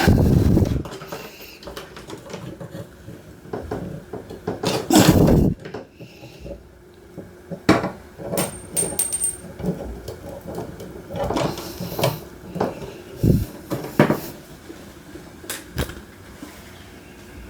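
Handling noises from wiring a dimmer switch: irregular knocks, clicks and rustles of wires, switch and tools. The loudest knocks come at the start and about five seconds in, and a brief faint high-pitched tone sounds about eight seconds in.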